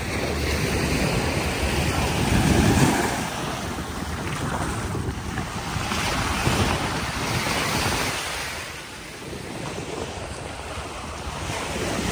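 Sea waves washing onto a beach, the surf noise swelling and ebbing every few seconds, with wind buffeting the microphone.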